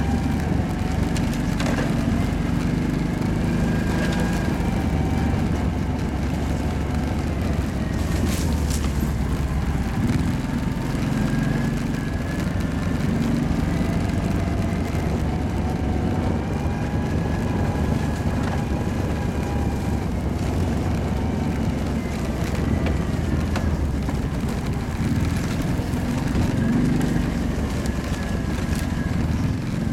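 Kawasaki quad's engine running under way, its pitch rising and falling as the throttle is opened and eased, with a few short knocks and rattles.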